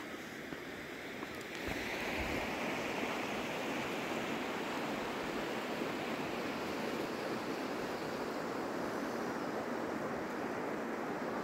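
Mountain river rushing over stones: a steady roar of water that grows louder about two seconds in and then holds.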